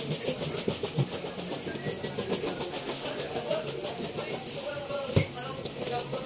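Hand-held toothed fish scaler scraping the scales off a red grouper in rapid strokes, several a second, with a single sharp knock about five seconds in.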